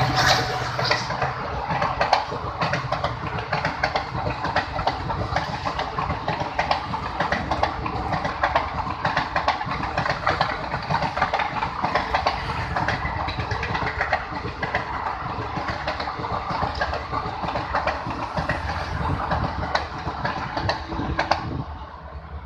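Express train rolling past over a bridge: dense, continuous wheel clatter on the rails, dropping off just before the end as the train goes by.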